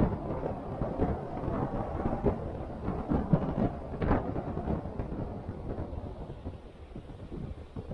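A 4x4 jolting over a rough off-road track: a low rumble with frequent irregular knocks and thumps from the bumps, easing off after about five seconds.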